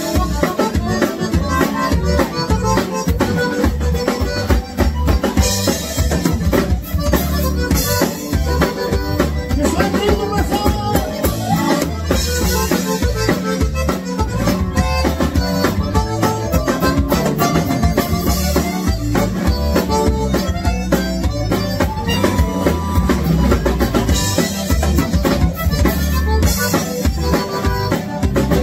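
Live band playing: a button accordion leads over drum kit and electric bass, with a steady beat.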